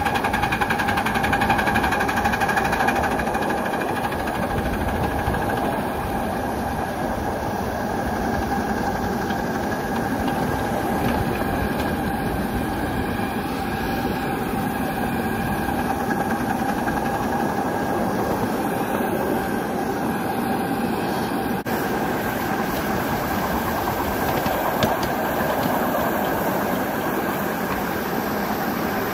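Miniature steam locomotive running steadily along its track, heard from just behind the boiler: a continuous rumble of wheels on rail and running gear with a steady tone over it.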